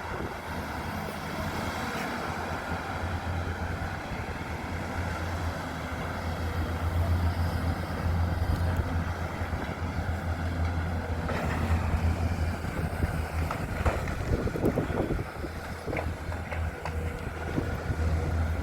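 A steady low engine drone with wind buffeting the microphone.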